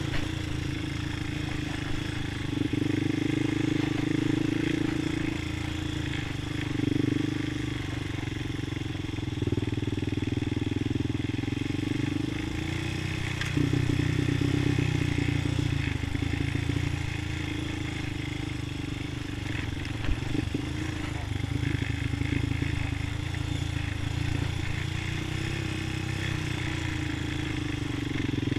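Honda ATV's single-cylinder four-stroke engine running at low trail speed, the throttle opening and easing every few seconds, with a few brief knocks and rattles from bumps on the trail.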